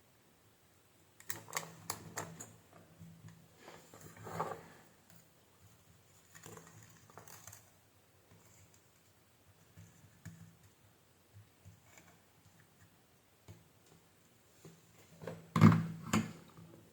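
Scattered clicks, taps and knocks of objects being handled on a workbench, coming in uneven clusters with the loudest knock near the end, over a faint steady low hum.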